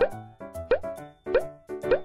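Four cartoon plop sound effects in quick succession, each with a short rising pitch, for dollops of icing being piped onto a cake, over light children's music.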